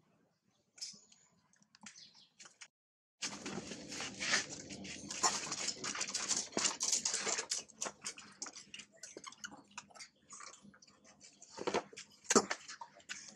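Dense crackling and scuffling noise made of many small clicks, starting suddenly a few seconds in, with two sharper knocks near the end.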